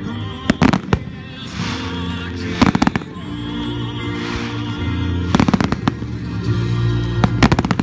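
Aerial fireworks bursting in quick clusters of sharp bangs and crackles, four times, over steady background music.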